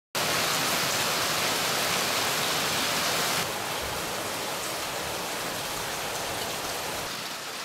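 Heavy rain falling on wet ground and puddles, a steady hiss that cuts in suddenly and eases slightly after about three and a half seconds.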